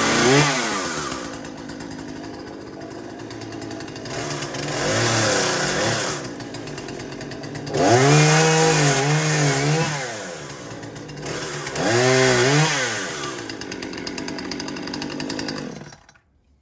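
Husqvarna 120 Mark II two-stroke gas chainsaw running, revved up several times between stretches of idle, including a longer wavering rev in the middle. The engine then shuts off suddenly near the end.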